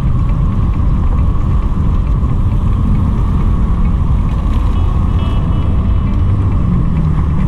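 Steady wind rumble on the camera's microphone while cycling along a city road, mixed with tyre and traffic noise.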